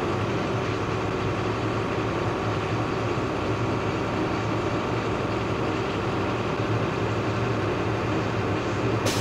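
Truck diesel engine running steadily while its air compressor builds brake pressure toward a full 120 psi. Near the end there is a short, sharp hiss of released air as the governor cuts out: the air system is fully charged.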